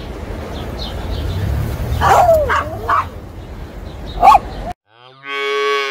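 A small terrier gives several short high yelps while jumping up after a ball. Then a young cow moos once near the end.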